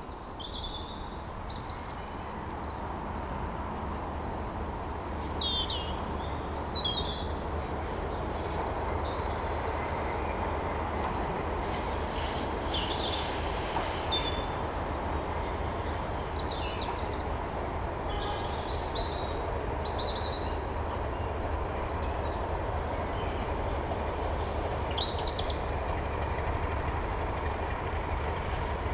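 Class 31 diesel locomotive running at a distance, a steady low drone that grows slowly louder. Birds chirp over it throughout.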